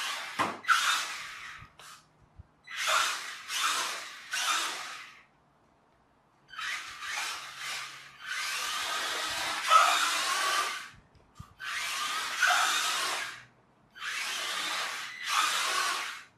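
Toy-grade RC rock crawler's small brushed electric motor and gears whirring in about six bursts of one to three seconds, each starting and stopping as the throttle is blipped, with short pauses between.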